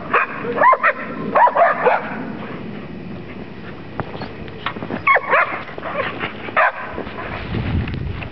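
Dogs yipping and barking in short bursts: a few quick calls near the start, again about a second and a half in, and twice more later.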